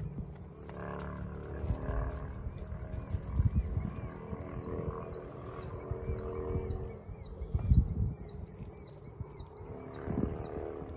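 Sheep grazing dry grass: tearing and chewing with rustling of the dry stalks, louder for a moment about three and a half and eight seconds in. A high chirp repeats several times a second in the background.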